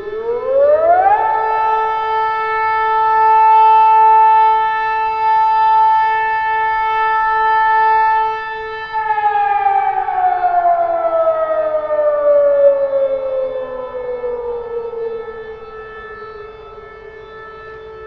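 City alert siren wailing: its pitch rises over about a second, holds one high steady note for about eight seconds, then slowly falls away to a lower note, over a steady lower hum.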